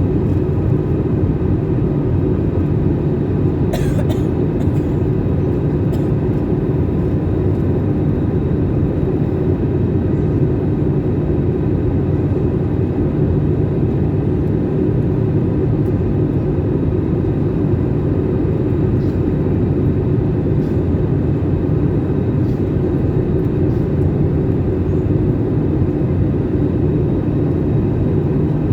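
Airliner cabin noise: a steady low rumble of jet engines and airflow, with a couple of faint clicks or rattles about four and six seconds in.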